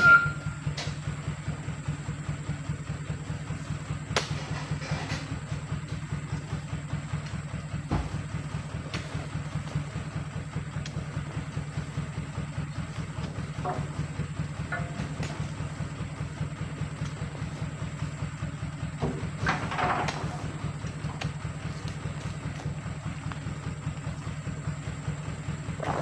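A dump truck's diesel engine idling steadily with an even, pulsing hum. A few sharp knocks stand out, fitting oil palm fruit bunches being tossed into the steel bed.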